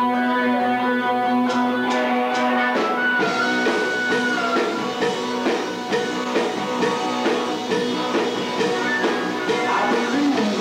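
Live rock band playing. A held electric guitar chord rings, four drum hits come in around two seconds in, and the full band of guitars, bass and drums kicks in with a steady rock groove about three seconds in.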